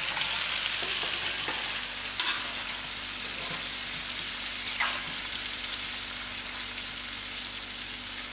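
Cubed potatoes frying in oil and masala in a stainless steel pot: a steady sizzle, with a metal spoon stirring and two sharp clinks against the pot, about two and five seconds in.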